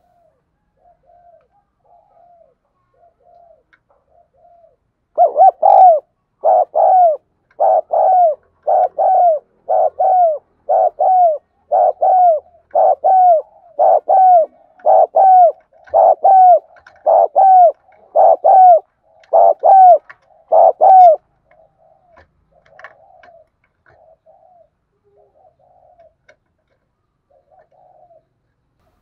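Spotted dove cooing. A few seconds of soft, faint coos lead into a loud run of about sixteen coos, roughly one a second, each note arching in pitch. Near the end it drops back to soft coos.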